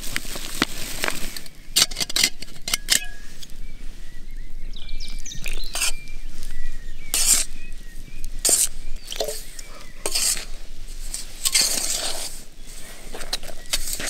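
Flour poured from a paper bag into a stainless steel pot, then a spoon stirring and scraping against the pot with sharp clinks. Near the end, hands squish and knead the wet dough in the pot.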